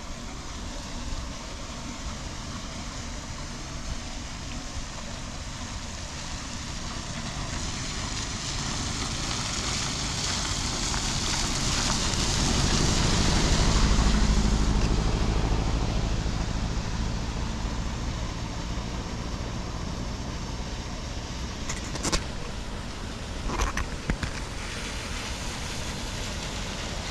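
A car passing on the wet road: tyre hiss on the water rises, peaks with a low engine rumble about halfway through, then fades away. Steady rain noise underneath, with a few short knocks near the end.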